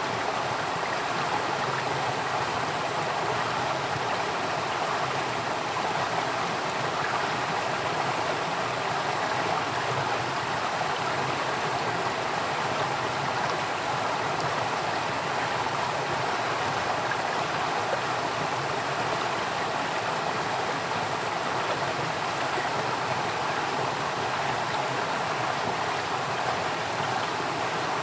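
Steady flowing water, a stream running continuously over rocks with an even rushing sound.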